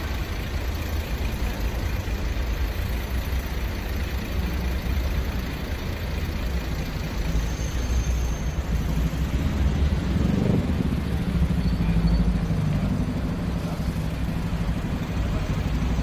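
City street traffic: a steady low rumble of vehicle engines and tyres, swelling about ten seconds in as a vehicle passes close and then easing off.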